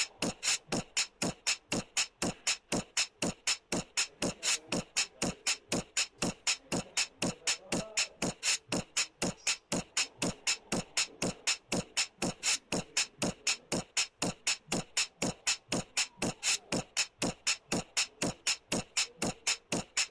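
A steady, fast percussive beat of sharp clicking hits, about four a second, with only a faint tone beneath it: a backing music track.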